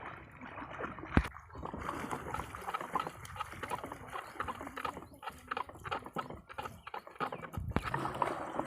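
Water sloshing and gurgling with many small splashes and crackles, and one sharp knock about a second in.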